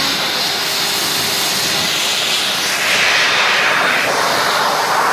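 Wall-mounted electric hand dryer blowing a loud, steady rush of air with a thin high motor whine. It grows louder about three seconds in, as a hand goes under the nozzle.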